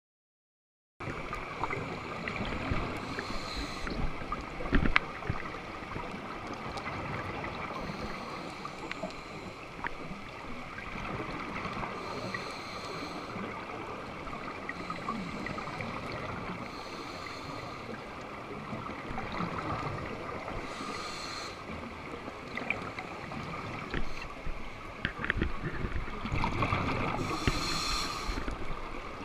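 Scuba diver breathing underwater through a regulator: a rushing burst of exhaled bubbles every four or five seconds over a steady hiss, starting about a second in. A sharp knock about five seconds in.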